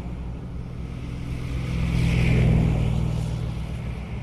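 Car engine running steadily, getting louder about halfway through and easing off again.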